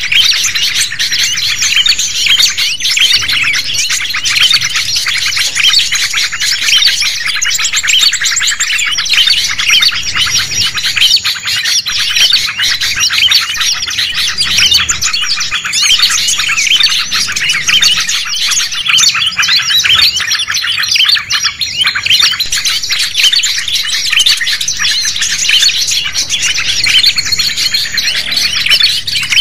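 Dense, continuous chorus of many small songbirds chirping and twittering over one another, with quick high chirps and short whistles and no pause. It is a mixed-species bird-lure recording of 'noisy birds' (burung ribut), played to draw wild birds in.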